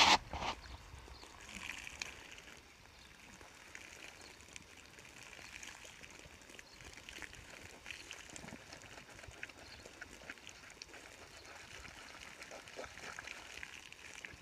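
Water from a garden hose running and trickling over a horse's wet coat, faint, with scattered small drips and splashes; a short loud burst right at the start.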